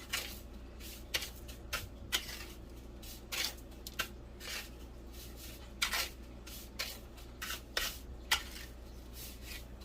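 Irregular short scrapes and rustles of kitchen handling, a bowl and utensils working a dry breadcrumb coating mixture, roughly one every second.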